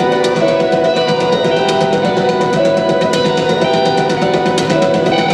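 Electric guitar played live, with held, layered notes ringing over a steady drum beat.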